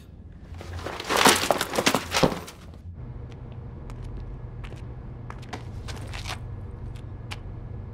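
A burst of scuffling noise with sharp knocks in the first three seconds, then a steady low hum with a few faint clicks.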